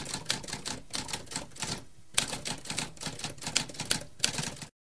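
Typewriter typing: rapid, irregular key strikes, with a short pause about two seconds in, then cutting off suddenly just before the end.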